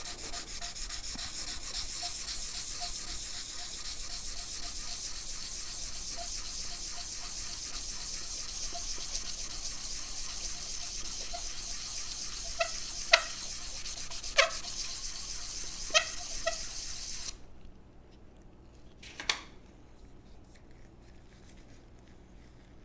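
500-grit sandpaper on a block rubbed quickly back and forth over a wooden revolver stock, a steady scratchy hiss, the final smoothing before the finish goes on. The sanding stops about three quarters of the way through, and a few sharp clicks come near its end and once more after it.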